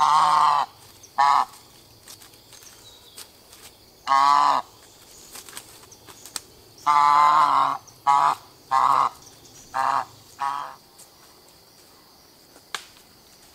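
White domestic goose honking loudly, about eight calls: two at the start, one about four seconds in, then a long honk about seven seconds in followed by a quick run of shorter honks that stops about eleven seconds in.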